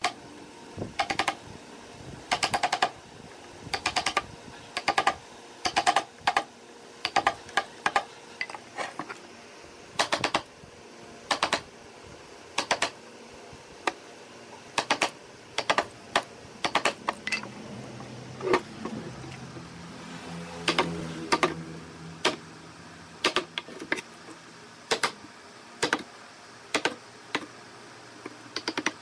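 A wooden block used as a mallet knocking a steel chisel into a hardwood door frame, cutting out the corner joint. It goes as sharp taps in quick clusters of two to four, over and over.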